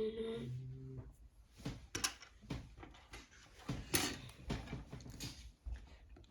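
Small plastic toy-kit parts and packaging being handled: a run of irregular clicks and rustles. It opens with a short hummed tone that drops in pitch and stops within the first second.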